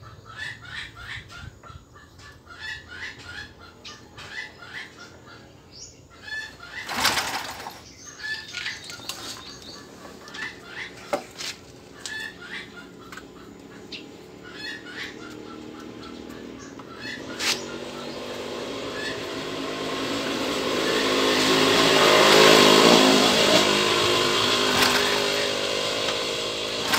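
Chickens clucking and chirping, with a loud knock and a few smaller clicks. Then a vehicle's noise swells up over several seconds, loudest about two-thirds of the way in, and eases off again.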